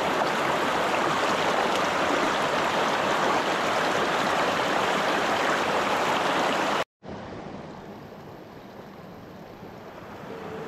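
Shallow rocky creek rushing over stones in a steady wash. About seven seconds in it breaks off for an instant and comes back quieter.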